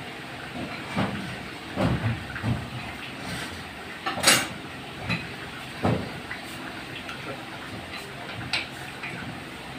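Irregular knocks and scrapes as a small electric water pump's motor is handled and fitted back onto the pump body. There are about six knocks, with a sharp one about four seconds in the loudest, over a steady hiss.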